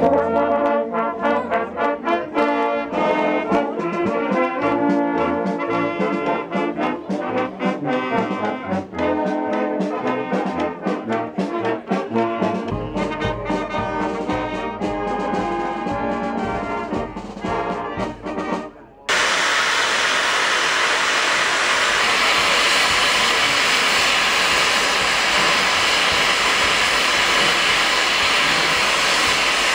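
A brass band with saxophones, trumpets and a drum playing. About two-thirds of the way through it cuts off abruptly to a steady, loud hiss of steam from a standing FS Gr. 625 steam locomotive.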